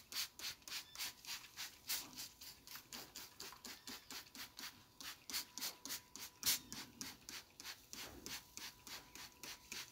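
Trigger spray bottle spritzing a basting mix onto meat in a smoker, in quick short sprays about four or five a second.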